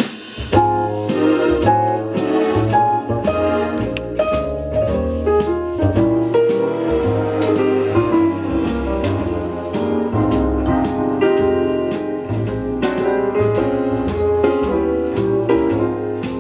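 Instrumental jazz: piano over a bass line, with drums keeping a steady beat.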